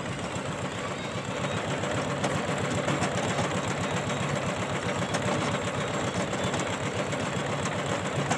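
Engine of a water-well boring machine running steadily, with a fast even chugging; it grows a little louder about two seconds in.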